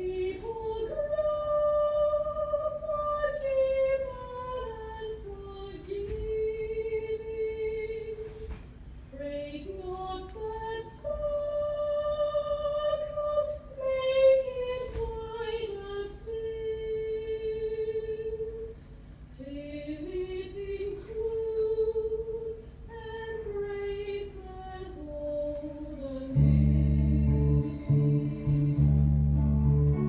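A woman singing slow, wordless-sounding phrases of long held notes that glide up and down in pitch. Near the end, low, louder instrumental music comes in.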